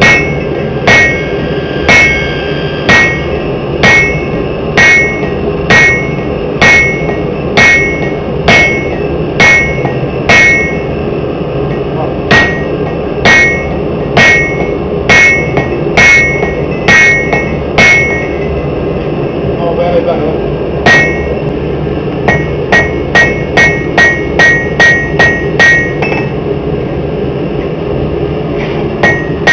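Forging hammer striking the tomahawk steel on an anvil, each blow ringing. The blows come about once a second, stop briefly, then come in a quicker run of lighter blows before another pause. A steady background noise runs underneath.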